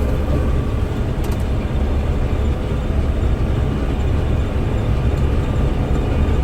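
Combine harvester running steadily under load while cutting spring oats, a dense, even machine drone with strong low end. The crop here is a bit greener and is not feeding into the combine so well.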